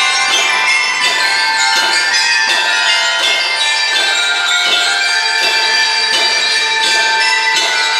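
A drum and lyre corps' front line playing a melody on mallet keyboard instruments: a stream of struck, bell-like notes that ring on over one another.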